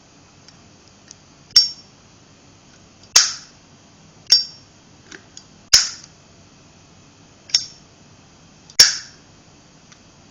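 Street chrome Zippo lighter being flipped open and snapped shut three times: six sharp metallic clicks of the lid, hinge and toggle cam, one every one to two seconds, each with a short ringing.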